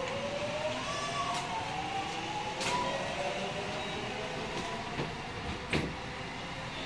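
JR West 207 series 1000 EMU under way, its Toshiba GTO VVVF inverter and traction motors whining in a tone that rises steadily in pitch as the train accelerates, then fades about three seconds in, over steady rolling noise from wheels and rails. A few sharp clicks cut through, the loudest near the end.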